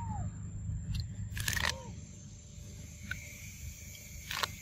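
A monkey eating a corn cob: two sharp crunchy snaps, one about a second and a half in and one near the end, over a steady low rumble. A short falling chirp-like call sounds right at the start.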